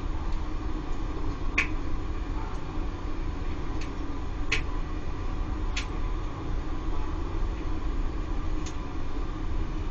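Laddomat 21 charging unit on a wood-fired boiler, its circulation pump running with a steady hum. About six sharp ticks come at irregular moments over it.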